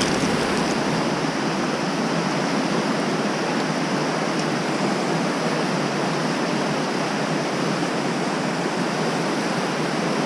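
Madison River whitewater rapids rushing: a steady, even sound of fast water.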